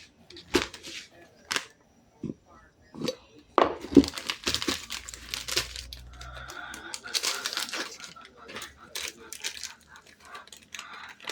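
Crinkling and rustling of packaging being handled, with scattered sharp clicks and knocks. The crinkling is densest in the middle few seconds.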